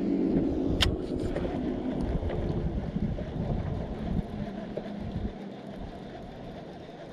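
A boat motor's steady hum under wind buffeting the microphone, with one sharp click about a second in. The hum stops a little under three seconds in, and the wind rumble dies down a couple of seconds later.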